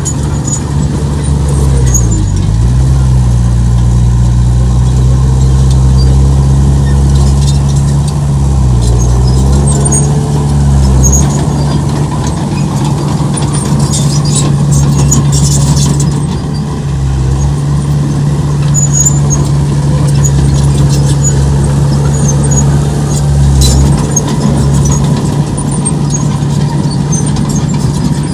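Heavy earthmoving machine's diesel engine running steadily under load. Its pitch dips briefly about two seconds in and again about nine seconds in. Short high metallic squeaks and clinks are scattered throughout.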